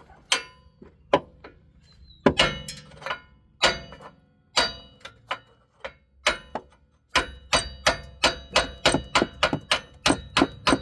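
Hammer striking steel, ringing with each blow, as a seized rear wheel hub is tapped out of its knuckle. A few spaced blows, then a fast run of about three to four strikes a second from about seven seconds in.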